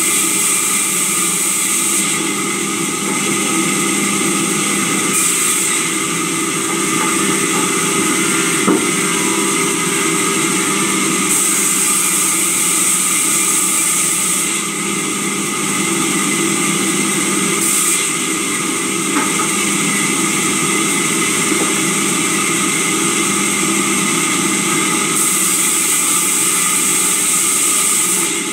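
Sawmill saw running steadily as a worker feeds timber through it, with stretches of higher hiss that come and go as the blade cuts wood. A single knock sounds about nine seconds in.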